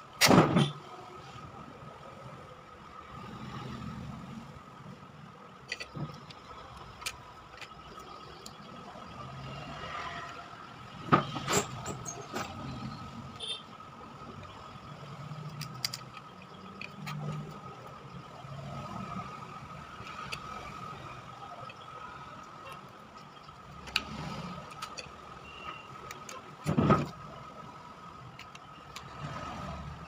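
Clicks and knocks of a keypad phone's parts being handled and fitted together on a workbench, the loudest near the start, around 11 seconds and around 27 seconds. Under them runs a steady high hum and a low background noise that rises and falls.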